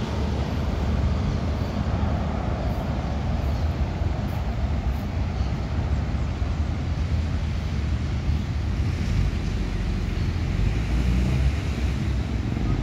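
Jet engines of a Boeing 787-9 airliner flying low on final approach and moving away, heard as a steady low rumble.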